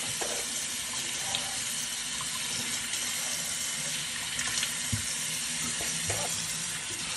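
Kitchen faucet running a steady stream into a stainless steel sink, the water splashing on a hand held under it, with a few light knocks.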